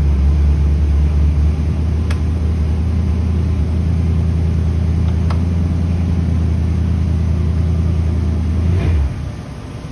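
Mercury 255 flathead V8 running steadily at a low speed of around 1,000 to 1,200 rpm on an engine dyno, a deep, even drone. It is shut off about nine seconds in.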